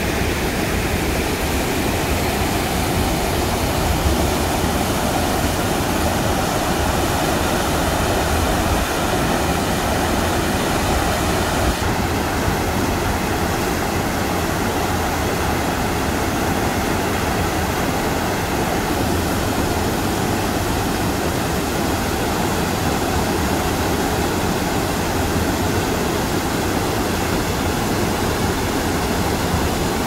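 Mountain stream rushing and splashing as it pours in small cascades over rock ledges into a pool: a loud, steady sound of falling water, its hiss dulling slightly about twelve seconds in.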